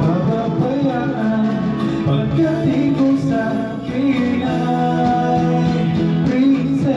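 Karaoke: a man singing into a microphone over a backing track, amplified through the room's speaker.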